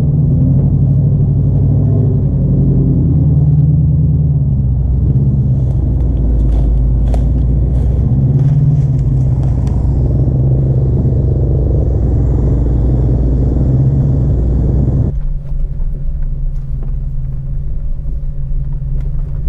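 Jeep Grand Cherokee WJ engine running under load as it crawls a rocky trail, with a few sharp knocks in the middle from the underside striking rock. The sound turns duller abruptly about fifteen seconds in.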